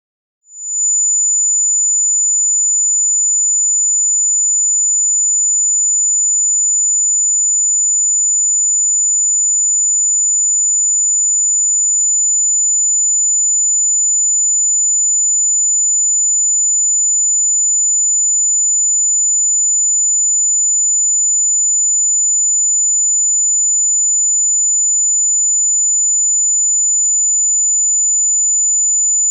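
Electronically generated pure sine tone, very high-pitched and loud, held at one unchanging pitch after starting about half a second in.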